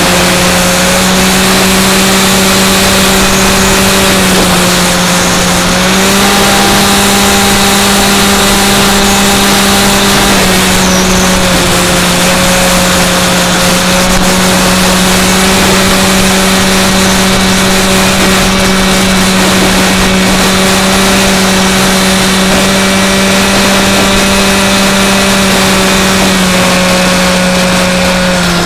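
Brushless electric motor and propeller of a Skywalker X5 flying wing running in flight, heard through its onboard camera over steady wind rush. The motor's steady hum steps down in pitch about four seconds in, back up about six seconds in, down again about ten seconds in and once more near the end, as the throttle is changed.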